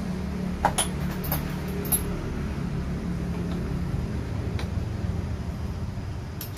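Small 3.6 V cordless electric screwdriver running with a steady low motor hum while it turns out laptop screws, the hum fading after a few seconds. A few light metallic clicks come in the first two seconds.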